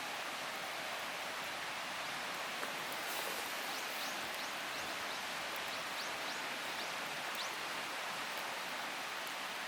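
Open wood fire giving a steady hiss with faint scattered crackles. A run of short, high, falling chirps sounds through the middle.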